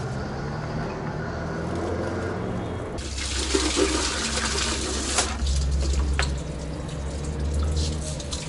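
Water from a garden hose splashing into a plastic bucket, starting about three seconds in, over a low steady hum.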